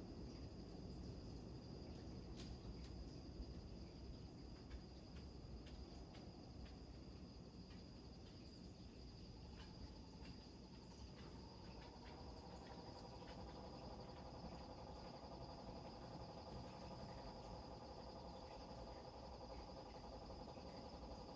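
Faint crickets trilling in one steady high tone over a low wash of surf. About halfway through, a steady hum of several stacked tones joins in.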